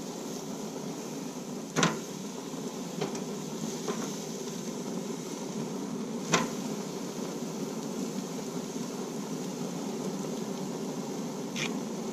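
A steady mechanical hum, like a fan or motor running, with a few sharp clicks scattered through it.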